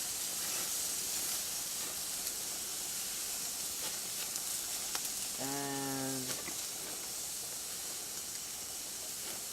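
Steaks sizzling on a hot barbecue grill as sauce is brushed on: a steady hiss with a few faint clicks.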